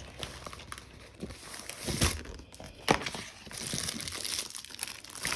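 Plastic wrapping and paper crinkling and rustling as a rolled diamond-painting canvas is opened and a plastic-wrapped bundle of drill bags is taken out from inside it. Irregular rustles, with a sharper crackle about three seconds in.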